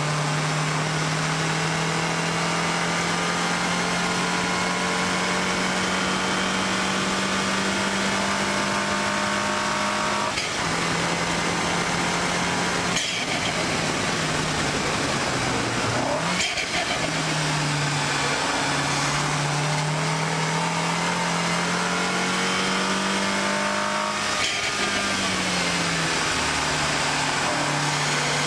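2014 MINI Cooper S's turbocharged four-cylinder engine pulling hard, its pitch climbing steadily and dropping at an upshift about ten seconds in, dipping and jumping back up around the middle, then winding down near the end as the car slows, over a steady rush of wind and tyre noise.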